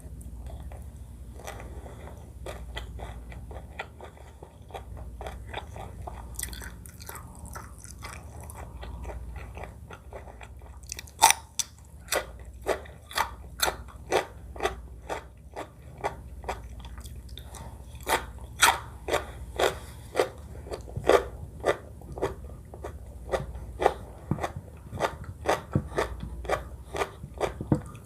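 Close-miked chewing of a meal of curry, shrimp and rice, heard as a run of sharp, wet mouth clicks. They are faint at first and become much louder about a third of the way in, at roughly two chews a second.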